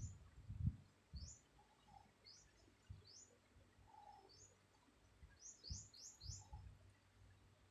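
Faint bird chirping: short rising chirps every second or so, with a quick run of four about two-thirds through. A few brief low thumps come under it, the loudest near the start.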